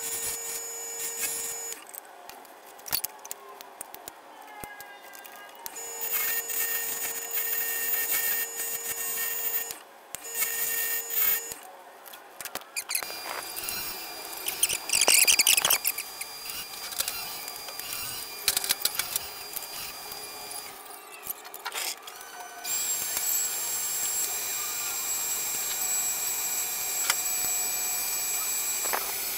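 Wood lathe running with a segmented wooden bowl spinning on it while a gouge cuts, throwing shavings. Steady high whine tones come and go in the first half, there is a loud burst about halfway through, and the running noise turns louder and steadier near the end.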